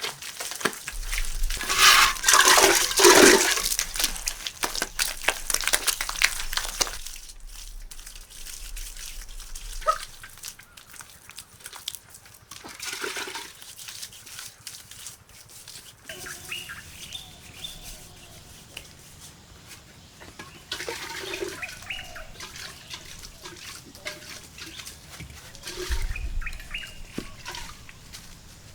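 Water splashing and pouring for several seconds, then quieter, with scattered faint animal calls.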